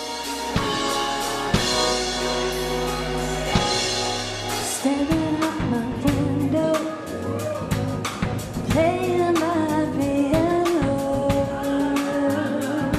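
Live band playing a pop song: sustained chords with a few drum hits at first, then about five seconds in a woman starts singing into a handheld microphone over a steady drum beat.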